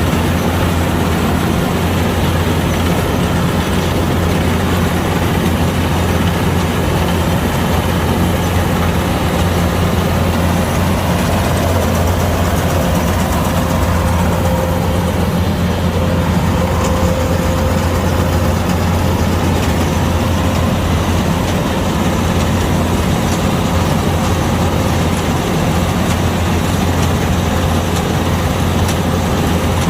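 Kubota DC-105X combine harvester running steadily, its diesel engine and machinery making a constant low drone.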